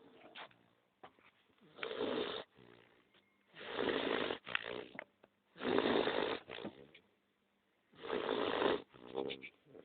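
A sleeping dog snoring: four loud snores about two seconds apart, with softer breaths between them.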